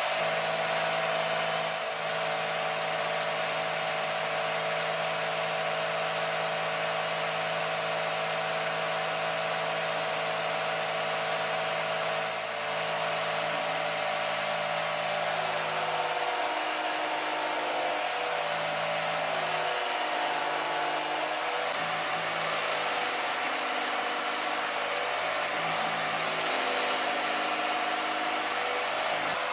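Jigsaw running steadily, mounted upside down under a table as an improvised table saw. From about halfway through it cuts a series of short slots into a board, and its tone dips and shifts with each cut.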